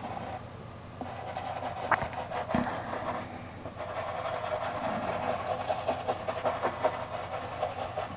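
Soft pastel stick rubbed across pastel paper in repeated strokes, a steady scratchy rubbing with a couple of small clicks about two seconds in.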